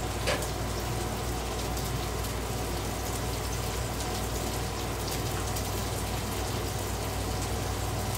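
Onions and burger patties sizzling steadily on a Blackstone flat-top griddle, with a single click just after the start.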